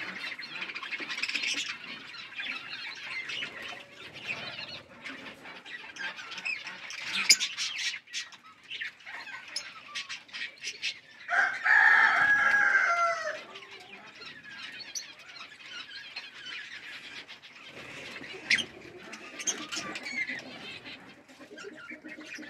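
Pet birds chirping continuously, with scattered sharp taps, and one louder, drawn-out call about twelve seconds in.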